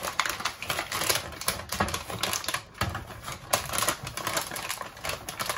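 Aluminium kitchen foil crinkling and crackling as it is folded and crimped by hand over the edges of a roasting tin, in a rapid, irregular run of crackles.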